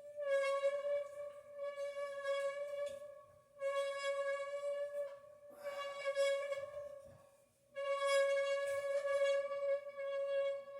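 A steady singing tone with bright overtones, like a rubbed wine glass, held at one pitch in four long stretches with brief breaks. It comes from a pool 8 ball in a glass cup being rubbed by a turning poplar wood triangle frame, the friction between ball and wood setting it singing.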